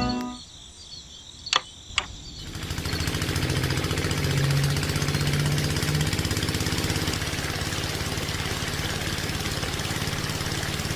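Small DC hobby motor belt-driving a miniature water pump: two clicks, then the motor starts about two and a half seconds in, spins up, and runs steadily with a fast buzzing rattle.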